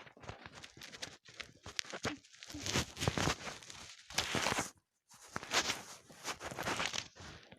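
Irregular rustling and scraping with scattered sharp knocks close to the microphone, coming in uneven bursts with a brief drop to quiet about five seconds in.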